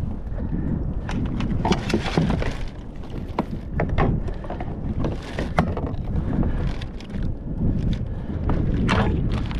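Wind buffeting the microphone on a kayak, with irregular splashes and knocks of water and gear throughout.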